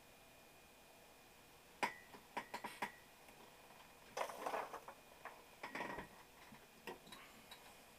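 Handling noises from the PowerBook G4 laptop being worked on by hand: a sharp click about two seconds in, a quick run of lighter clicks, then two short scuffs and a few more light clicks near the end.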